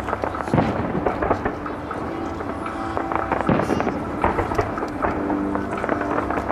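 Display fireworks bursting in quick succession: a continuous run of bangs and crackling, with sharper bangs about half a second and three and a half seconds in.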